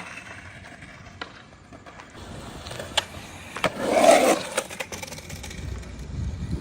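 Skateboard rolling on concrete, wheels rumbling, with sharp clacks of the board and a louder clatter about four seconds in.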